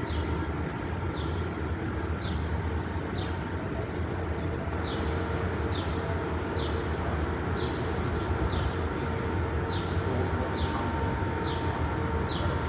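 Steady rumble of city street traffic, with a short high chirp repeating at a little under twice a second.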